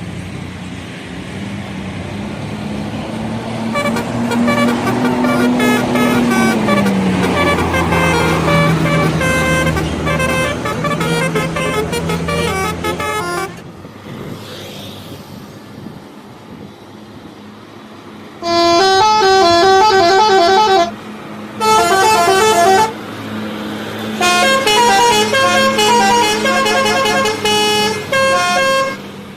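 Bus 'telolet' musical horn playing quick stepping melodic tone sequences. In the first half it sounds over a bus engine whose hum rises and then falls in pitch. After a quieter lull it comes in three loud bursts in the second half.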